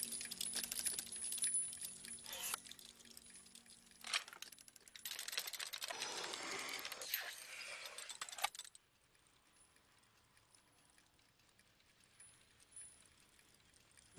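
Metal clockwork of a drawing automaton clicking, clinking and rattling as it works, with separate sharp clicks in between. A dense rattle runs from about five seconds in, stops sharply at about eight and a half seconds, and the rest is almost silent.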